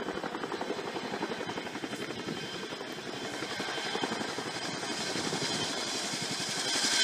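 Chinook tandem-rotor helicopter approaching, its rotors beating in a fast, even chop that grows louder in the second half.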